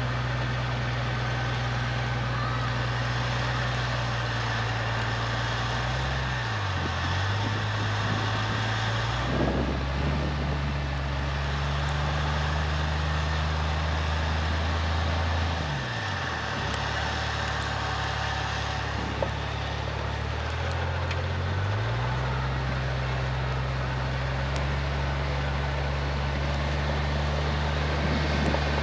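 A 4x4's engine idling steadily, its note briefly sagging and recovering three times, with a steady hiss over it.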